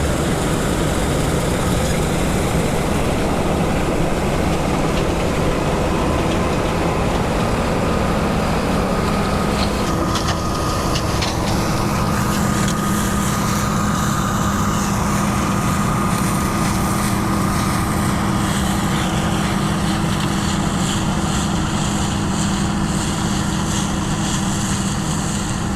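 Combine harvester running steadily at close range as it drives slowly past, its engine and machinery making a continuous hum with a steady whine.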